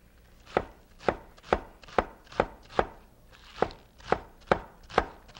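Large kitchen knife chopping green onions on a wooden cutting board: a steady run of sharp cuts, about two to three a second, starting about half a second in.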